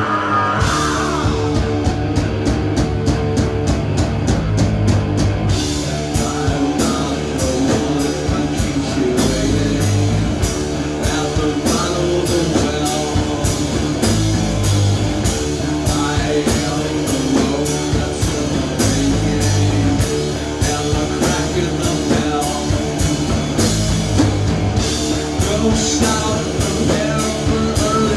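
Live rock band playing a song with electric guitar, bass and drum kit. The drums come in right at the start, and steady cymbal hits fill in from about five seconds in.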